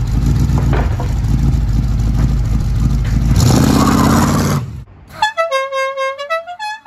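Car engine rumbling as the car drives by, swelling louder for about a second near the middle, then cutting off. A short tune of clear, horn-like notes stepping up and down in pitch follows.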